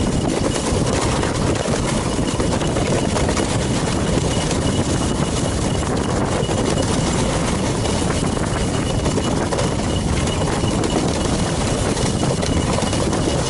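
Steady low rumbling noise from a ski bike running over snow, even and unbroken, with no distinct knocks or pauses.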